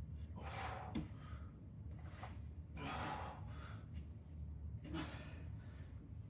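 A man breathing hard through a held side-plank exercise, sharp breathy exhalations coming every second or so, with a short click about a second in. A steady low hum runs underneath.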